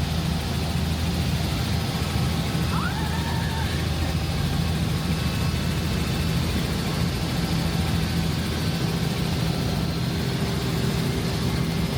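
Helicopter cabin noise in flight: the steady, even drone of the rotor and engine.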